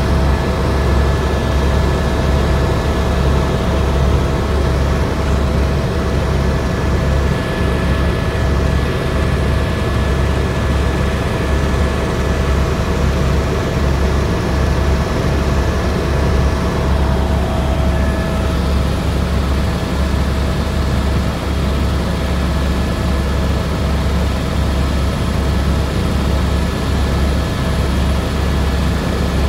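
Helicopter in flight heard from inside the cabin: a loud, steady, pulsing low rotor thrum with a constant engine whine over it.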